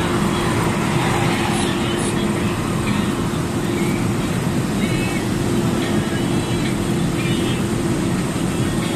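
Steady drone of a truck's engine and tyres heard inside the cab while cruising along the road, with a constant low hum.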